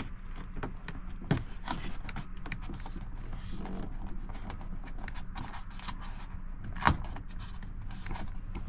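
Hands feeding a power cable behind the car's plastic interior trim: scattered clicks, taps and light scraping of plastic, with a louder knock about seven seconds in, over a steady low hum.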